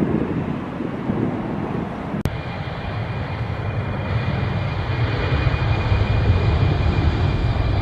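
Airliner engines running: a steady low rumble with a thin high whine that slowly grows louder, after a sharp click and brief dropout about two seconds in.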